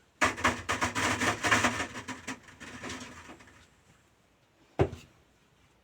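Cherries being loaded for drying, with the dryer's trays handled: a dense clattering rattle for about three seconds, then a single sharp knock near the end.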